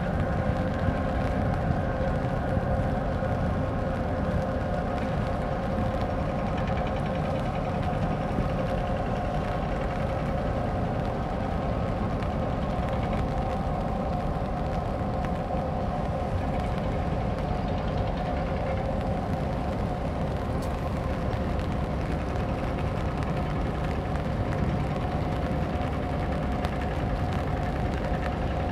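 Steady drone of the container ship Hyundai Smart's engines and onboard machinery as it passes close by: a low rumble under a few steady hum tones.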